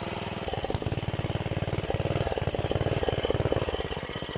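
Small engine of a Luch walk-behind tractor running steadily with a rapid, even chugging.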